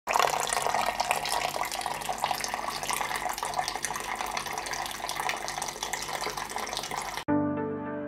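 Small tabletop fountain's stream of water pouring from a bamboo spout and splashing steadily into its basin. About seven seconds in the water sound cuts off abruptly and background music with clear notes begins.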